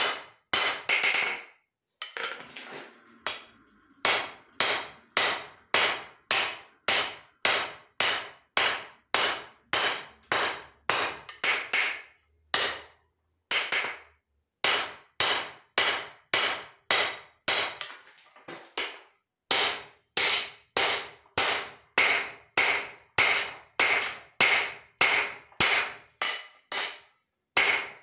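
Hand hammer striking leaf-spring steel on an anvil, a steady run of blows about one and a half a second, each with a brief metallic ring. The hammering stops briefly a few times and then resumes.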